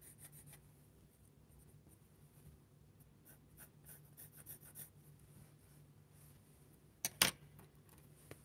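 Faber-Castell 9000 graphite pencil drawing lines on paper, with faint scratching strokes. About seven seconds in come two sharp taps close together.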